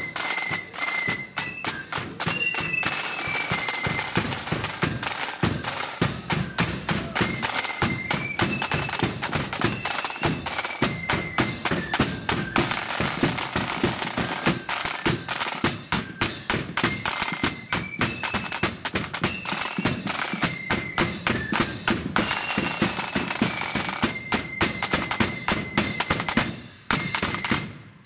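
Marching flute band playing a tune: shrill flutes carry the melody over rapid side-drum rolls and the beat of a bass drum. The playing breaks off near the end.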